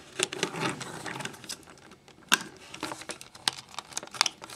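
Hard plastic parts of a Transformers Human Alliance Sideswipe toy clicking and knocking irregularly as the figure is handled and its parts are pushed into place, with one sharper click about halfway through and a few quick clicks near the end.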